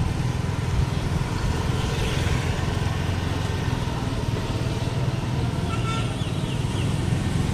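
Motor scooter riding at low road speed, heard from the pillion seat: a steady engine and road rumble with wind buffeting the microphone.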